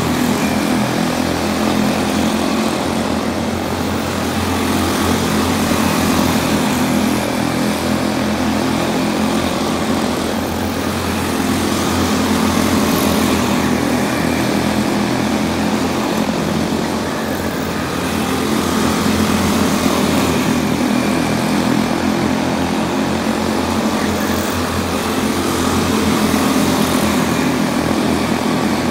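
Quarter midget race cars' small single-cylinder engines droning together as the cars circle the oval, swelling and easing slightly every several seconds.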